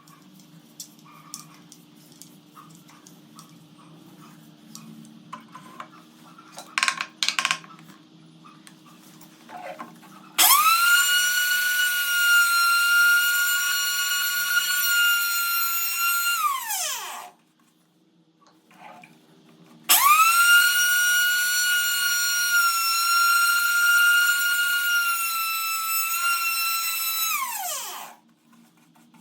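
Electric power-tool motor run twice, about seven and then eight seconds: each time it spins up quickly to a steady high whine and winds down with a falling pitch when switched off. Small clicks and knocks come before the first run.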